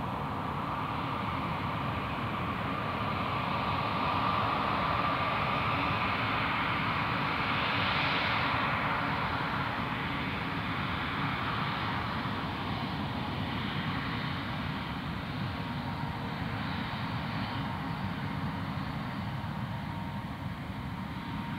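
Jet engines of a Singapore Airlines Airbus A350-900 (Rolls-Royce Trent XWB turbofans) spooling up as the airliner starts its takeoff roll: a steady jet roar that swells to its loudest about eight seconds in, then eases off a little.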